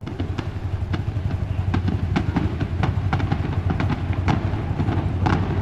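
Fireworks display: a steady low rumble with many irregular sharp crackles and pops.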